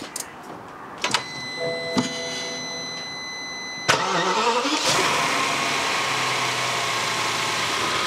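BMW 760Li's 6.0-litre V12 starting: a click about a second in and a steady whine, then the engine cranks and fires about four seconds in, flares briefly and settles into idle with a high-pitched squeal, which the owner suspects is a vacuum leak or faulty new crankcase breather valves.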